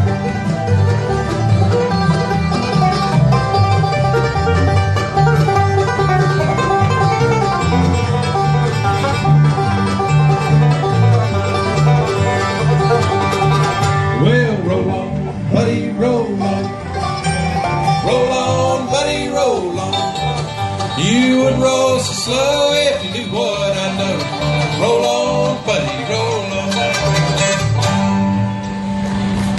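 Bluegrass music from an acoustic string band: guitar and banjo picking, with the music changing to a different passage about halfway through.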